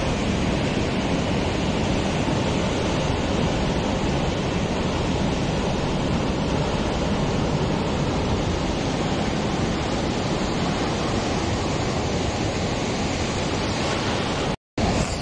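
Ocean surf breaking on a rocky shore: a steady, even rush of waves and washing water. The sound cuts out for a moment near the end.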